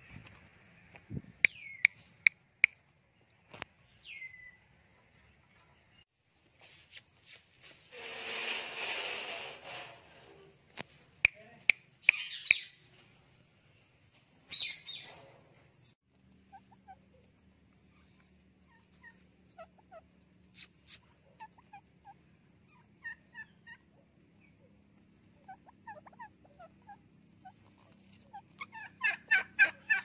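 Indian ringneck parakeets calling: short squawks and a falling screech, scattered soft chirps, and a quick run of about six rapid notes near the end. Sharp taps and a couple of seconds of noise are mixed in.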